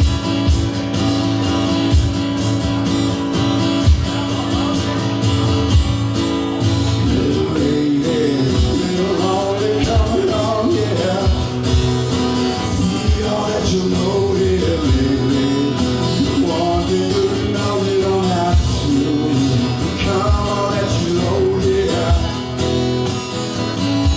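Live band music with guitar and bass over a steady low beat. A wavering melody line comes in over it about seven seconds in.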